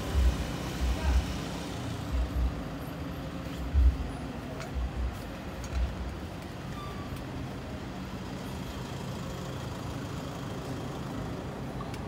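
Street traffic: motor scooters and cars passing and idling, a steady low hum. A run of dull low thumps comes over the first half.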